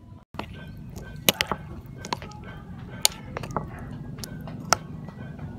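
Metal spoon stirring mushrooms in thick batter in a ceramic bowl, striking the bowl's rim and sides in several sharp clinks at irregular spacing.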